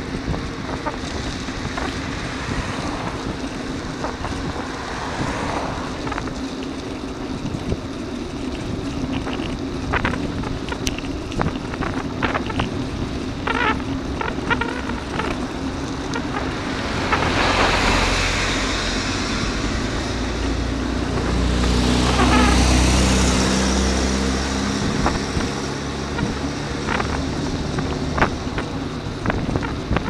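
Wind noise and road rumble from a bicycle-mounted camera while riding, with scattered sharp clicks and rattles. A car passes about 17 seconds in, and a louder vehicle with a low engine rumble passes about 21 to 24 seconds in.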